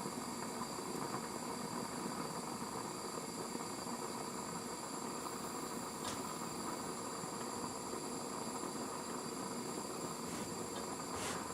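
Soldering torch flame hissing steadily as it heats a copper pipe joint where the solder is slow to melt.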